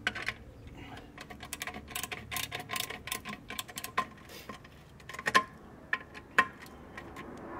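Screwdriver driving the screw that fastens a Weber Q grill's burner tube to its igniter bracket: an irregular run of small metallic clicks and ticks, with a few sharper clicks about five and six seconds in.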